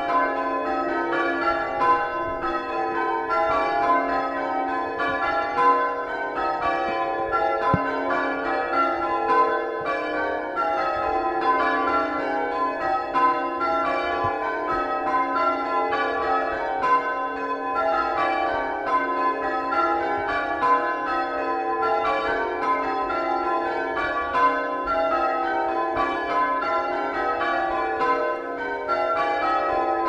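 Church bells rung in changes: a ring of eight tower bells, most of them cast by John Warner and Sons in the 1880s, striking one after another in a steady, even rhythm with a mellow tone.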